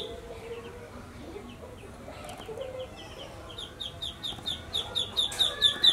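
Rapid high peeping chirps, about four a second, fading just after the start and growing louder again from about three seconds in.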